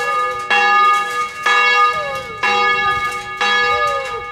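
Large bronze church bell in the belfry tolling at close range, struck about once a second, each loud stroke ringing on into the next.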